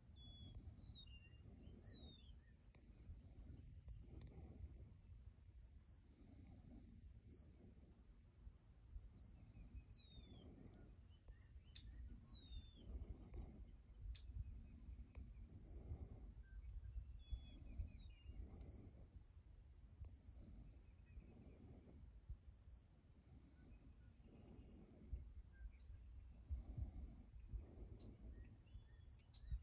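Small songbirds chirping: short high notes repeating about once a second, with occasional whistles sliding downward. Underneath runs a low rumble with soft puffs every second or two.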